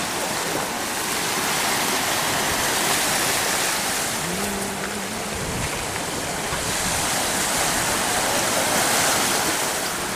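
Sea surf washing over rocks and onto a beach: a steady rushing noise that swells and eases. A short, low held tone sounds briefly about four seconds in.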